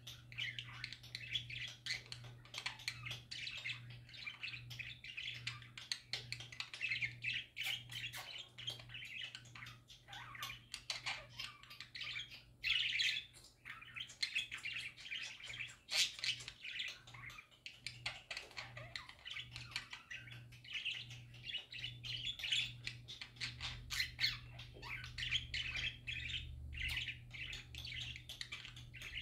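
Pet budgerigars (parakeets) chattering and warbling without a break, a dense stream of quick chirps, squawks and clicks, over a steady low hum.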